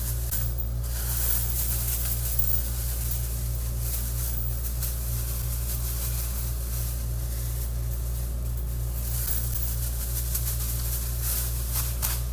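Brown paper packaging crinkling and rustling as it is handled and torn open, in scattered bursts, loudest about two and a half seconds in. Under it runs a steady low hum.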